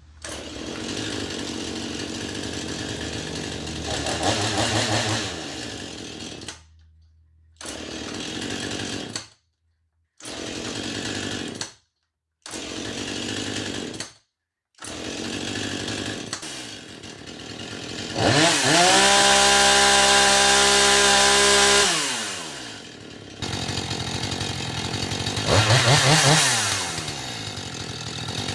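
Husqvarna 435 X-Torque two-stroke chainsaw running, revved up to full throttle and held for about four seconds past the middle, then let back down, with a second short rev near the end. The sound cuts abruptly to silence several times in the first half.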